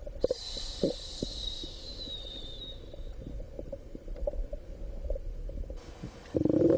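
A hungry person's stomach growling: a low rumble broken by irregular gurgles and pops, with a louder, longer growl near the end.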